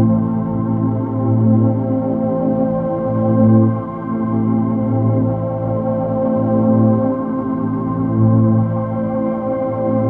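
Dark ambient drone music: a dense, organ-like held chord of layered synthesizer tones, its low notes swelling and fading every second or two.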